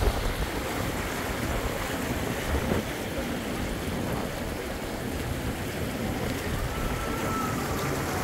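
Steady wind buffeting the microphone, a low rushing rumble.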